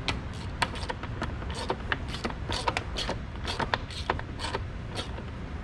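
Hand ratchet wrench clicking in short runs, about one run each second, as it is swung back and forth to tighten the newly fitted coolant temperature sensor.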